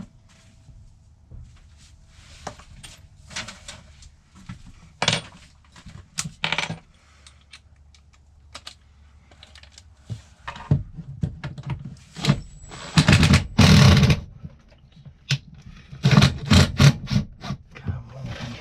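Irregular knocks, clicks and clatter of hard objects being handled. The loudest parts are a noisy stretch about two-thirds of the way through and a quick run of rattles near the end.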